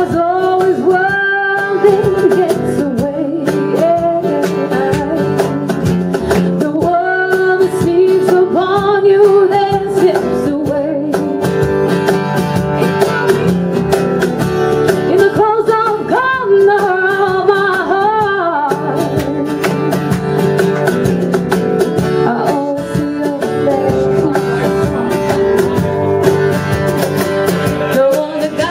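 Live acoustic band music: a lead vocal singing over strummed acoustic guitar, with a cajon beating the rhythm.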